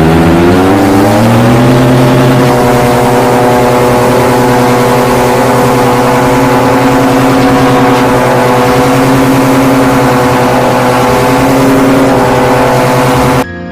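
Air Conception Revolution 200 paramotor's engine and propeller running loud at flying power. The pitch rises as the throttle opens over the first two seconds, then holds steady before cutting off abruptly near the end.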